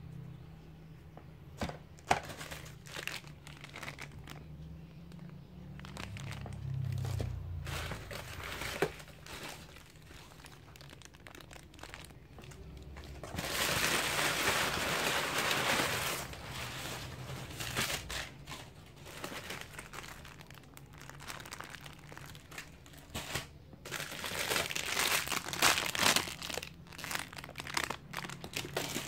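Paper packing crumpling and rustling as hands rummage through a cardboard box, loudest for a few seconds about halfway through, with more crinkling near the end. Scattered clicks and knocks of plastic toys being handled run throughout.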